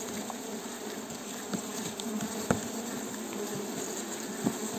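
Stingless bees buzzing steadily in an open hive box, with a few light clicks.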